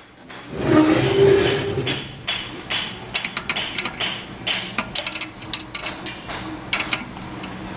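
Metal hand tools working the belt grinder's head-adjustment bolts: a louder metallic scrape about a second in, then a run of irregular sharp clicks and clinks.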